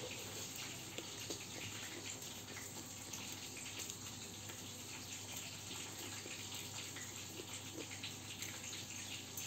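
Faint eating sounds, a person chewing and fingers picking food from a plate, with a few small soft clicks over a steady background hiss.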